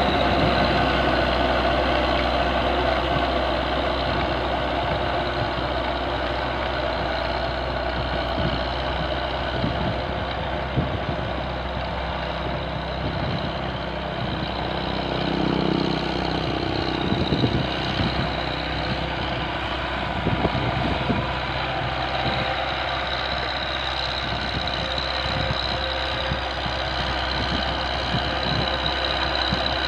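Massey Ferguson 390 4WD tractor's diesel engine running steadily under load while it drives a rear-mounted rotary tiller, with a steady high whine above the engine note.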